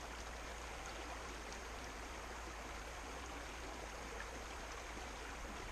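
A mountain creek running over rocks: a steady rush of flowing water with a fine babble and small splashes.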